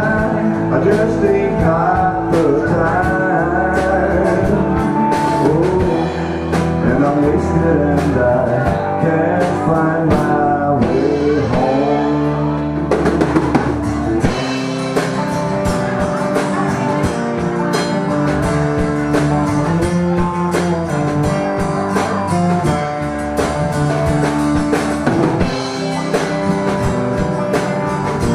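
Live band playing a rock song: acoustic and electric guitars over a drum kit, with singing.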